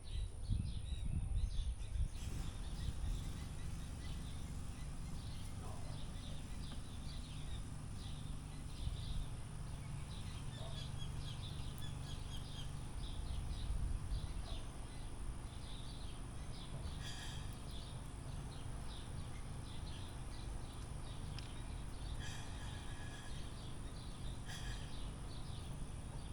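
Small birds chirping and calling repeatedly, with a few louder call series in the second half, over a steady low outdoor rumble.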